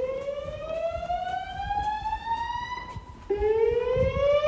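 Slow-whoop evacuation tone from fire alarm speaker strobes (System Sensor SpectrAlert Classic): a tone sweeping steadily upward in pitch, which stops about three seconds in and starts again low a moment later, louder. It is the alert tone that a voice-evacuation system plays between rounds of its recorded message.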